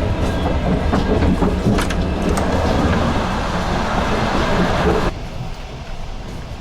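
Running noise of a moving passenger train, its wheels loud on the rails over a steady low hum, dropping off sharply about five seconds in.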